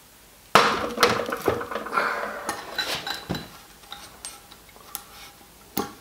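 Ceramic basin with its tap and braided hoses fitted being turned over and handled on a bucket. There is a sharp ringing knock about half a second in, then a string of clinks and knocks, and one more sharp knock near the end.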